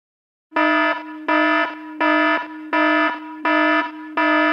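Electronic alarm beeping: a loud, steady-pitched beep repeated evenly about every 0.7 seconds, starting about half a second in, the sound of a wake-up alarm going off.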